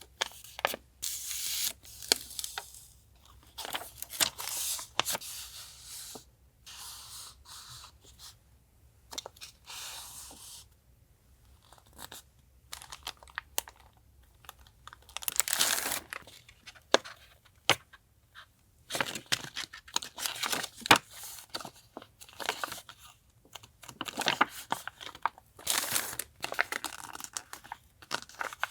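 Sticker sheets and paper goods, with their plastic sleeves, being handled and unpacked. Irregular spurts of paper and plastic rustling, crinkling and tearing, with sharp little ticks and taps in between.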